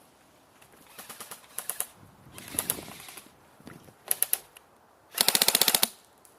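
Airsoft electric rifles firing: scattered short bursts and single shots, then a loud rapid full-auto burst of about a dozen shots near the end.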